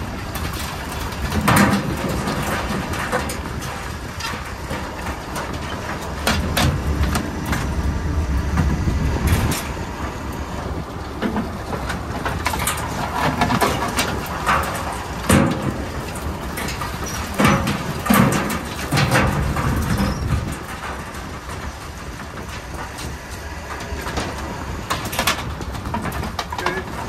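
Commercial crab workboat's engine running steadily, with irregular metallic clanks and rattles as wire crab pots are shaken out and knocked against the boat's rail and culling box.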